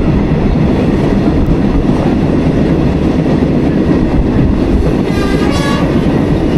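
A passenger train running along the track, heard from inside the coach: a steady, dense rumble of wheels and running gear. A short high-pitched tone sounds briefly about five seconds in.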